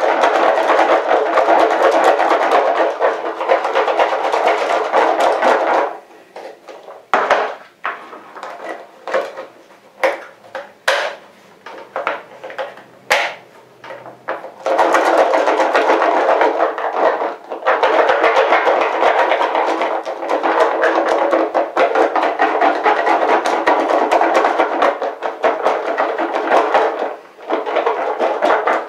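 Cooked spod mix of peas, corn, wheat and hemp seed rattling hard inside a small clip-lid plastic food container as it is shaken to coat the grains with dip. After about six seconds the shaking stops, leaving scattered clicks and taps of the containers and lids. A second long spell of shaking starts about halfway through and stops briefly near the end.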